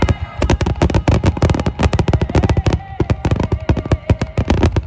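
A barrage of fireworks going off in quick succession: a continuous rattle of sharp bangs, several a second.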